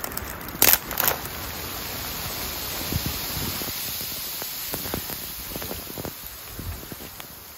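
Two sharp snaps of dry branches being broken, then a steady rushing hiss of wind-driven snow with a few soft crunches and knocks of branches being handled.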